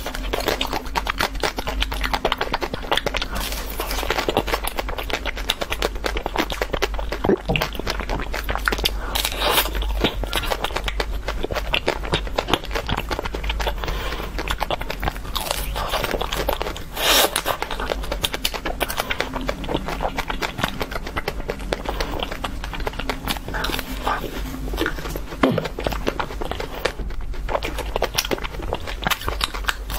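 Close-miked biting, crunching and chewing of frozen ice cream bars on sticks, with their hard coating cracking and crackling as it is bitten. A few bites stand out louder, one about halfway through.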